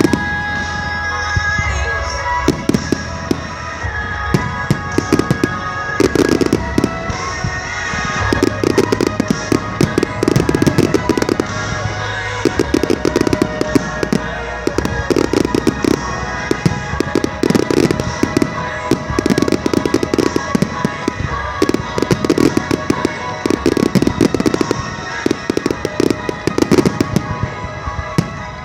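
Fireworks display: many rapid pops and crackles with heavier clusters of bursts every few seconds, over a music soundtrack.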